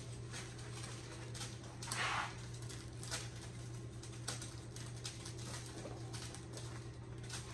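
Quiet kitchen room sound: a steady low hum under a few light clicks and taps from kitchen handling, with a short rustling noise about two seconds in.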